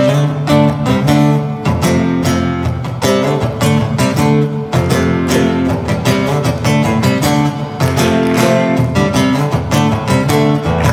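Acoustic guitar strumming chords in a steady rhythm, starting suddenly as an instrumental song introduction.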